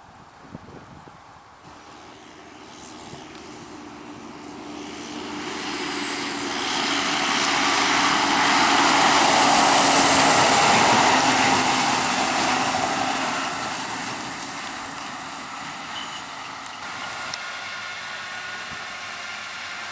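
A large farm machine's diesel engine passing close by, with a high turbo-like whistle that falls in pitch. It grows louder to a peak about ten seconds in, then fades and carries on at a lower level.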